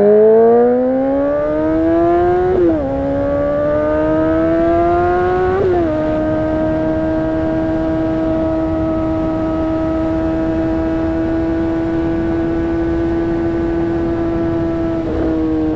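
2008 Honda CBR600RR's inline-four engine accelerating: the engine note climbs, drops briefly as the rider upshifts about two and a half seconds in and again near six seconds, then holds a steady cruising pitch with a small dip near the end.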